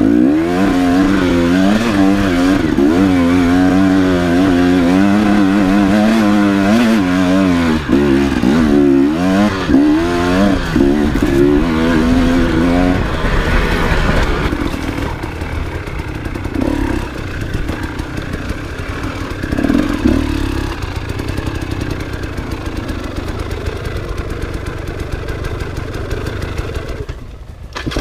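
Enduro motorcycle engine revving up and down with the throttle, its pitch rising and falling quickly over and over for about the first half. After that it runs lower and quieter, dipping briefly near the end.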